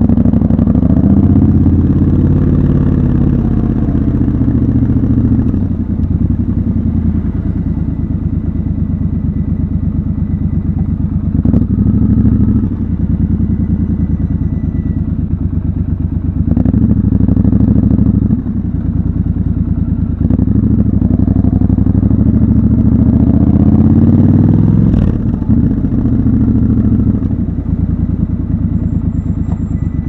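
Triumph Scrambler 1200 XC's parallel-twin engine pulling at low town speed, its revs rising and falling with throttle and gear changes. Near the end the revs climb for a few seconds, then drop off suddenly.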